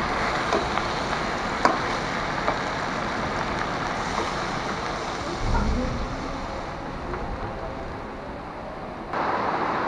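Spiced cauliflower sizzling in hot oil in a metal karai, with a few sharp clicks of a metal spatula against the pan. About halfway through, water is poured in with a low splash and the sizzling gradually dies down as the water cools the pan. Near the end the sound cuts suddenly to a louder, even hiss.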